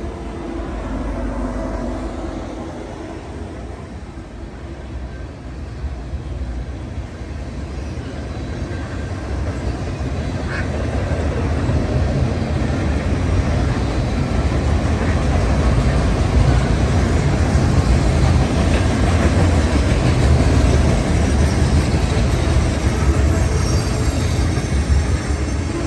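Norfolk Southern freight train rolling past: the diesel locomotives' engines at the start, then the rumble and clatter of the autorack cars' wheels on the rails, growing louder from about ten seconds in.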